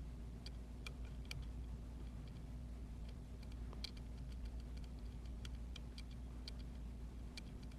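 Lock pick and tension tool working the pins of an Emhart lock cylinder: faint, irregular metallic clicks and ticks as the pins are probed and set.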